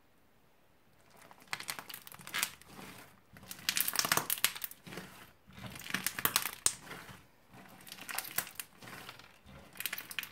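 Hands kneading and squeezing fluffy slime mixed with small beads, making wet crackling squishes in repeated bursts about every second or two, starting about a second in.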